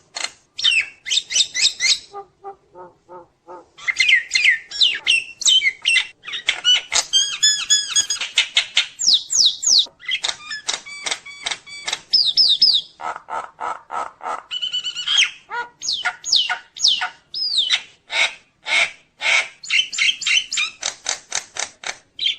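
Nias hill myna singing a fast, varied string of sharp calls, rising and falling whistles and rapid trills, with a brief run of softer, lower notes about two seconds in.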